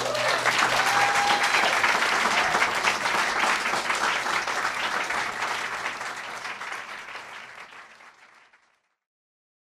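Audience applauding at the end of a song, fading away to silence about eight and a half seconds in.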